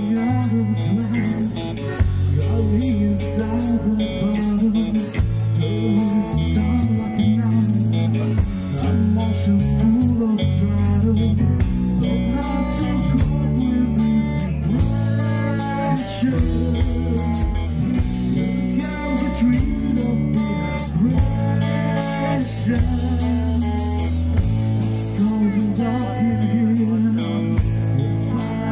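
Live rock band playing through a PA: electric guitars, bass guitar and drum kit, with singing.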